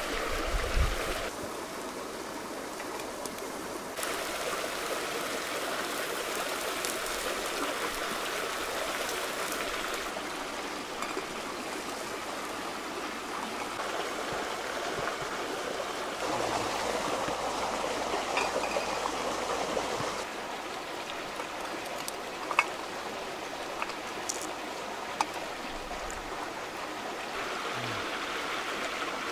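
Shallow river rushing over rocks, a steady flowing hiss whose level shifts abruptly several times. A few short sharp clicks in the second half.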